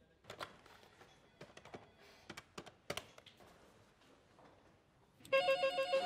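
A few soft clicks and taps, then about five seconds in a TCL corded desk telephone starts ringing with a rapidly pulsing electronic ring.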